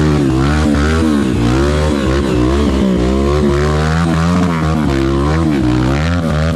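Enduro dirt bike engine revving up and down, its pitch rising and falling about twice a second as the throttle is worked on a hard trail section.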